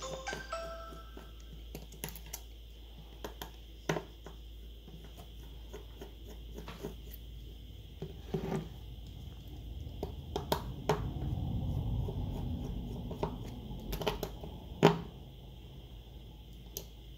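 Small clicks and taps of tools and loose metal and plastic phone parts being handled on a workbench during a smartphone teardown, with a stretch of low rubbing about ten seconds in and one sharper click near the end.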